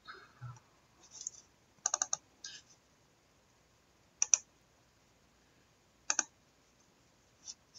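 A few scattered clicks of a computer keyboard, some single and some in quick groups of two or three.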